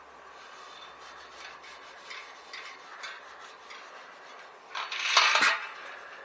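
Steel-wool soap pad scrubbing a rusty bicycle wheel rim with light, scratchy rubbing and small clicks, then a louder scratchy burst about five seconds in.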